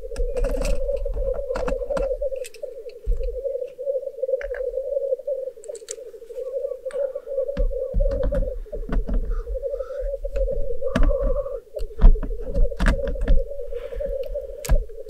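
Black grouse males' continuous bubbling rookoo chorus from the lek, a steady fluttering hum, with sharp clicks and knocks close by.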